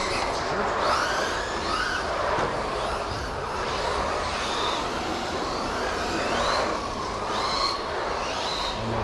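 Electric 1/10 RC stadium truck motors whining, the pitch rising and falling over and over as the cars accelerate and slow around the carpet track.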